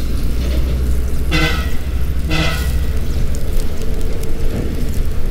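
Road traffic rumbling steadily, and a vehicle horn honks twice in short toots, about one and a half and two and a half seconds in.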